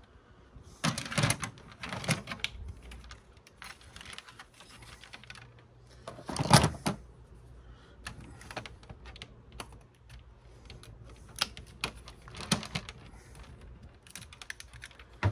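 Plastic and metal parts of a DVD player being handled and taken apart: scattered clicks, rattles and knocks, the loudest about six and a half seconds in.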